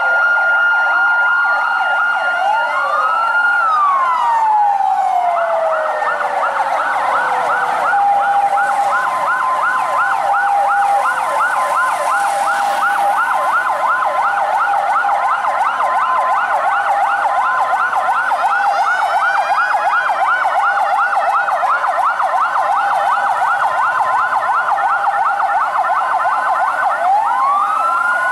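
Several emergency-vehicle sirens sounding at once from the airport fire and rescue vehicles: a fast yelp warbling several times a second, a two-tone hi-lo alternating steadily, and a slow wail that falls away after about three seconds and rises again near the end.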